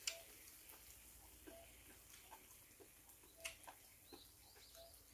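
Near silence with faint mouth clicks from someone chewing a mouthful of food: a sharper click right at the start and another about three and a half seconds in. A few faint short high chirps come near the end.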